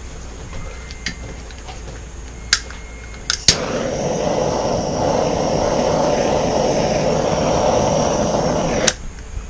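Several clicks, then a handheld air or heat tool switched on with a sharp click, blowing with a loud steady rush for about five seconds before it cuts off suddenly. It is being used on a fresh acrylic paint pour to bring colour up through the centre.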